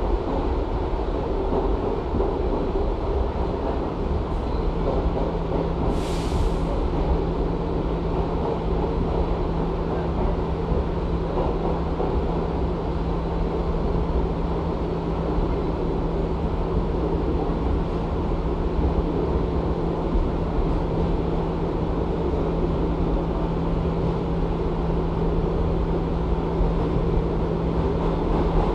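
Inside a Bombardier-built R62A subway car running along the track: a steady rumble of wheels and car body. A steady hum comes in about four seconds in and holds, and a brief hiss comes about six seconds in.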